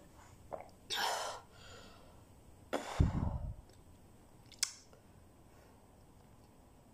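Mouth and breath sounds of someone finishing a drink of water from a glass: a swallow and a breathy exhale, a louder burst about three seconds in, then a single sharp click.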